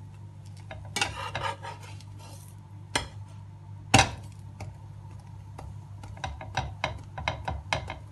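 Metal slotted spatula scraping and tapping on a flat nonstick pan as an egg-coated bread toast is turned and pressed. A sharp clack about four seconds in is the loudest sound, followed near the end by a run of quick light taps, over a steady low hum.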